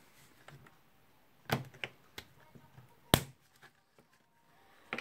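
Light metal clicks and taps as a screwdriver works the retaining ring off a rotary hammer's tool holder, with a sharp click about three seconds in.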